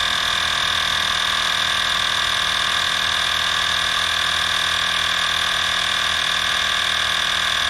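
EAFC cordless tire inflator, a small battery-powered piston compressor, running steadily under load as it pumps a trailer tire up past 54 psi: a constant high-pitched whine over a low hum.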